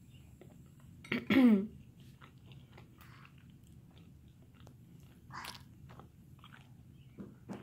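Faint chewing and small mouth clicks of someone eating spaghetti. About a second in comes a short vocal sound that falls in pitch, the loudest thing here, and a short breathy noise follows a little after five seconds.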